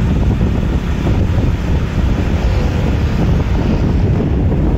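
Wind rushing over the microphone of a camera carried on a moving motorcycle, a steady, loud low rumble, with road traffic beneath it.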